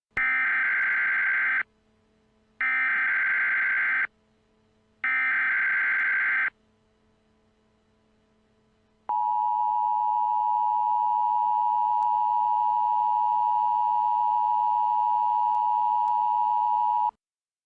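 Emergency Alert System SAME header: three short buzzing data bursts, each about a second and a half long with a second's gap between them, then the two-tone attention signal sounding steadily for about eight seconds and cutting off abruptly. Together they mark the start of an emergency alert.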